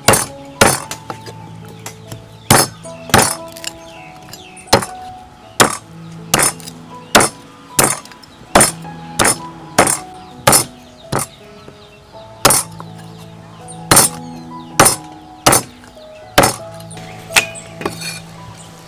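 A steel cleaver chopping raw meat and bone on a thick wooden chopping block: sharp chops at irregular intervals, about one or two a second, stopping shortly before the end. Soft background music plays underneath.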